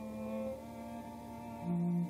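Slow instrumental music of long held notes in several voices, with a louder low note coming in near the end.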